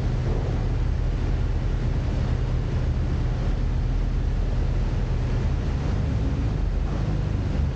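Steady low drone of a car ferry's engines, with wind buffeting the microphone and a rush of sea water.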